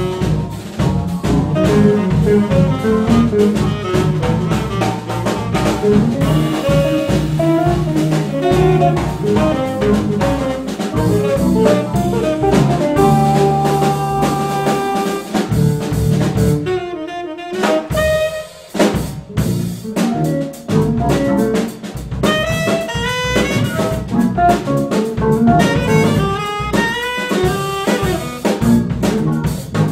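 Small jazz band playing: a tenor saxophone solo over drum kit, bass, guitar and piano, with a brief break in the band a little past halfway.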